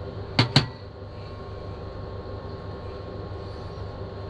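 Two sharp knocks a fraction of a second apart near the start, from the motorbike's swingarm bearing parts being handled as the race is pushed out, over a steady background hum.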